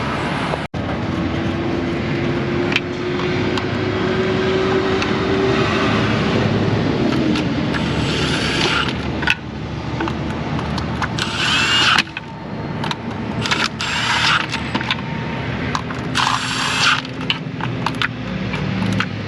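Steady repair-shop background noise, with a power tool whirring in four short bursts of about a second each in the second half.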